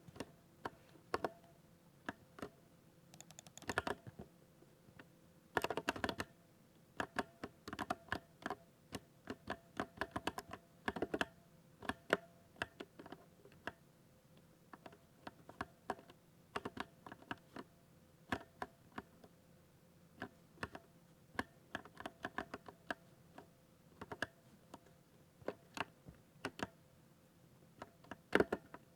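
Typing on a thocky mechanical keyboard: irregular keystrokes in quick runs broken by short pauses, with two dense flurries of clatter a few seconds in.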